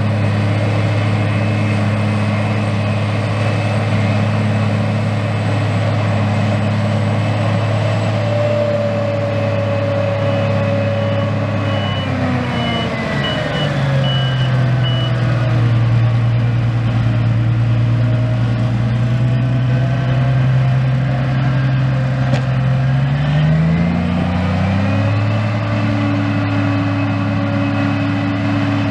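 John Deere 8800i forage harvester running steadily while chopping grass, with the tractor hauling the trailer alongside. The machinery's pitch drops about twelve seconds in and climbs back near twenty-four seconds. A faint intermittent beeping sounds for a few seconds in the middle.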